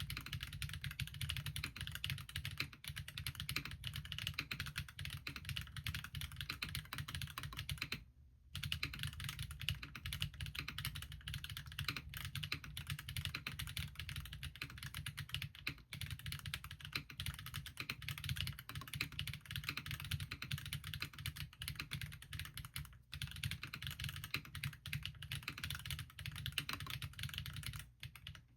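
Continuous fast typing on a Bahm Studio Droplet custom mechanical keyboard with stock Geon RAW ZERO switches and Linworks keycaps: a dense stream of key strokes, with a short pause about eight seconds in.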